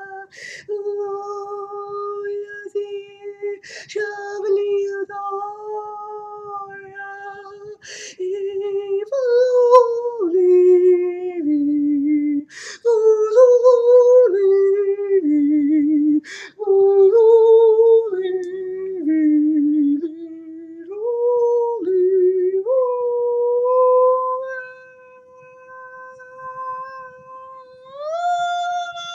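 A man singing wordless held notes in a high voice, stepping up and down between pitches, with short sharp breaths between phrases. A long steady note in the last few seconds bends higher just before the end.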